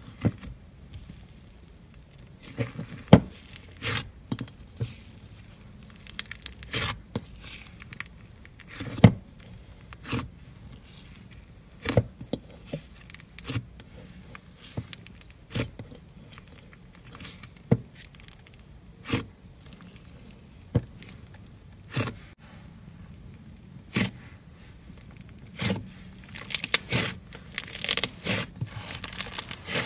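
A large batch of thick, bubbly blue slime being poked, kneaded and stretched by hand. It gives sharp pops and clicks about every one to two seconds as it is pressed and pulled, then a denser run of crackling and tearing near the end.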